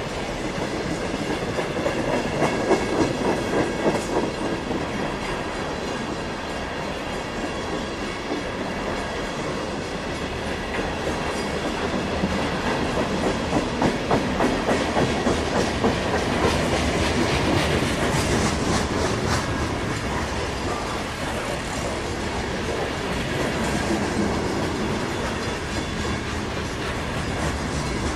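Freight cars (tank cars, covered hoppers and gondolas) rolling past close by: a steady rumble of steel wheels on the rails with rhythmic clickety-clack, which comes in louder spells of rapid clacks as the wheel sets go by.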